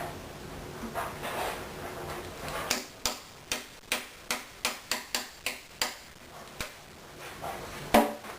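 A run of about ten sharp taps of a tool on the guitar's wooden body, roughly three a second, then one louder knock near the end.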